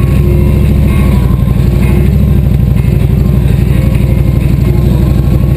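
Engine of a big touring motorcycle running steadily at low road speed. Its low, even engine note dominates throughout.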